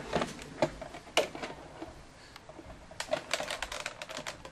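A cardboard retail box for a graphics-card cooler being handled and opened: a series of sharp clicks and crackles, grouped near the start, about a second in, and in a quick run around three seconds in.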